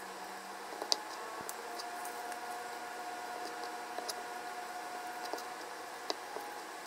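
Kitchen knife cutting soft food on a wooden cutting board: soft squishy cuts with a few sharp taps of the blade on the board.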